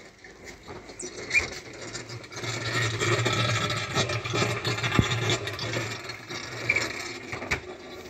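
Samsung top-load washing machine running its rapid spin cycle with its drain now clear: a steady motor hum with rattling and clicks, louder for a few seconds in the middle.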